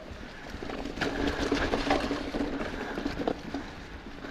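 Mountain bike rolling over a bumpy, leaf-covered dirt singletrack: tyre noise over dry leaves and dirt, with scattered knocks and rattles from the bumps and a steady low hum underneath.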